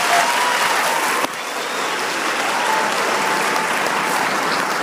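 Audience applauding steadily, with a single click about a second in.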